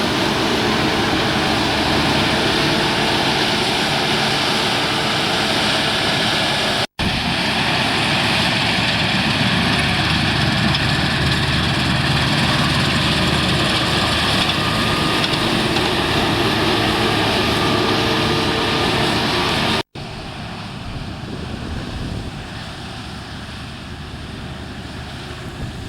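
Claas Lexion 480 combine harvester running, a loud steady din of its 410-horsepower engine and threshing machinery. The sound cuts out for an instant twice, about 7 and 20 seconds in, and is quieter after the second break.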